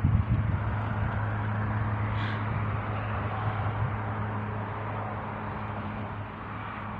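A steady low motor hum over a constant rushing outdoor noise, with one brief higher sound about two seconds in.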